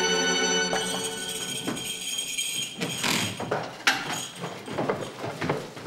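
Background score music cuts off about a second in, followed by shop bustle: scattered jingling clinks and knocks of goods being handled at a counter.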